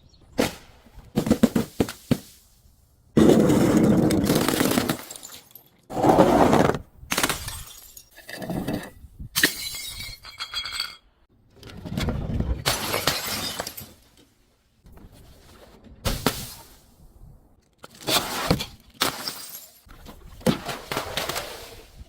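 Glass bottles breaking one after another: about a dozen separate crashes of shattering glass, some short and sharp, others longer crunching runs. Near the middle there is a brief clear ringing of glass.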